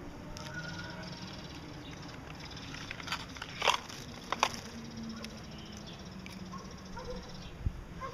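Gouldian finches chirping faintly, with two sharp, very short sounds about a second apart near the middle.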